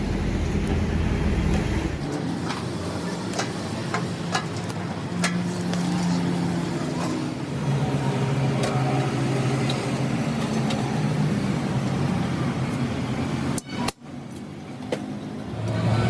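Factory workshop machinery noise: a steady low hum with scattered short clicks and knocks. The sound changes abruptly about two seconds in and drops out briefly near the end.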